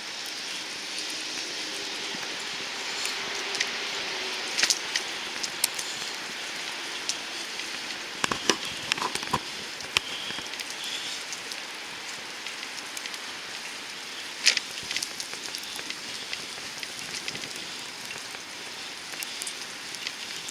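Steady hiss of wet snow coming down, with scattered sharp ticks and a few louder taps.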